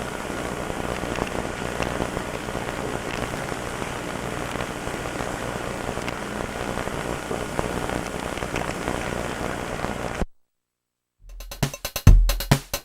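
Dense crackling hiss, like static or rain, with a few faint steady tones, cutting off suddenly about ten seconds in. After a second of silence, electronic music with a heavy drum-machine beat begins near the end.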